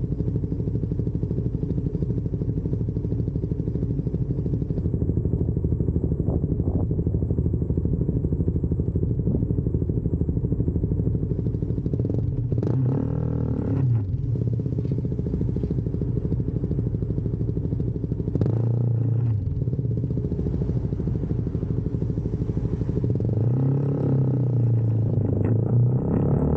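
CFMoto 300SS single-cylinder engine idling, with the revs blipped up and back down three times: about halfway through, again a few seconds later, and near the end.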